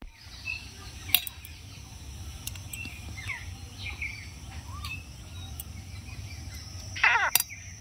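Birds chirping, with a sharp click a little over a second in as a stinging catfish's spine is cut on a boti blade. Near the end comes a short, loud squeak that rises in pitch, which the fish-cutter takes for the still-living catfish calling.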